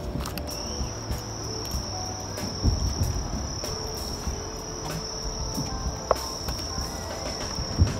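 Night insects trilling in a steady high-pitched chirr, with two dull thumps of distant fireworks bursting, about three seconds in and near the end.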